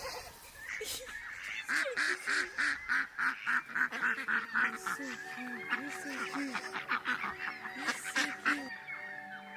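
Geese honking in a rapid, repeated series of calls, loudest through the middle. Soft music with held notes fades in under them about halfway through.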